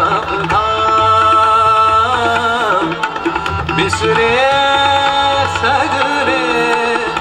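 Male vocalist singing long, ornamented held notes in Indian classical style, with tabla and harmonium accompaniment.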